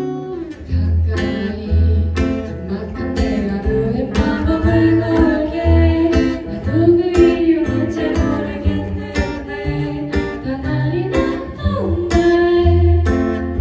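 Live pop-song performance: vocals sung over strummed acoustic guitar and keyboard, with a melody line over steady low notes.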